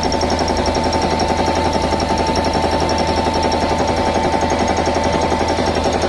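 A 22–23-year-old 1 HP Manjeet-model belt-driven reciprocating air compressor running steadily, its pump chugging in a rapid, even beat with a steady whine over it as it fills its tank with air.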